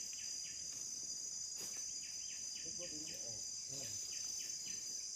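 Steady, high-pitched chorus of forest insects buzzing without a break, with a faint quicker chirping pulse underneath in the middle.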